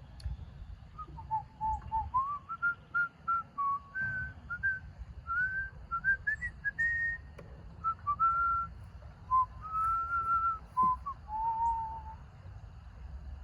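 A person whistling a tune: a string of clear notes, rising and falling, that starts about a second in and stops near the end.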